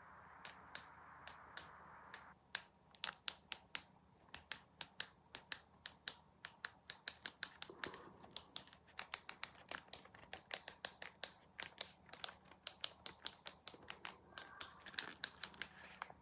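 A rapid, uneven series of sharp clicks or taps, several a second, densest through the middle, over a faint steady hiss at the start.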